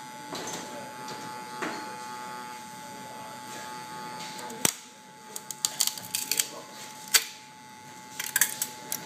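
A hand tool prying and scraping a freshly 3D-printed plastic case off the build plate of a FlashForge Creator printer: soft rubbing at first, then from about halfway a run of sharp clicks and cracks as the part works loose. A steady hum runs underneath throughout.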